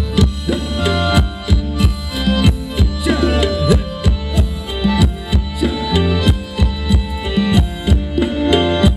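Live Thai band playing upbeat ramwong dance music: a steady, regular drum beat with heavy bass under sustained chords.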